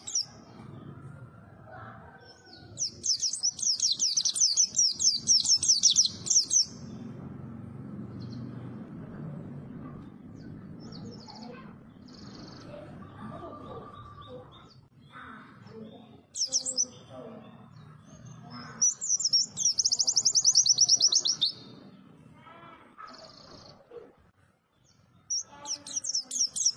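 White-eye (pleci) singing: three bursts of rapid, high twittering song a few seconds each, with short scattered chirps in between.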